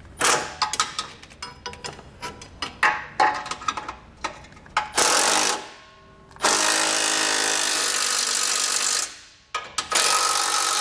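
Milwaukee cordless impact driver with a 3/4-inch socket running in bursts, driving the base-plate bolts tight: a short burst about five seconds in, then longer runs of two to three seconds. Before it, a quick run of metal clicks and rattles as the socket and hardware are handled.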